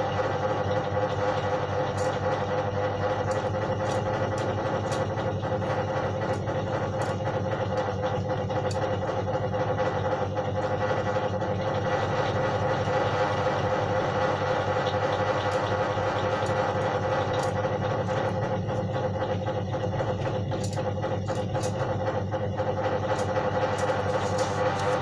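A motor running steadily with a constant hum, with light clicks and taps scattered through it.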